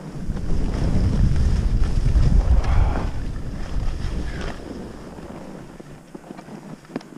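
Wind rushing over the microphone of a skier's camera during a descent on a ski slope, loudest over the first four seconds and easing after about five, with skis scraping on the snow beneath it.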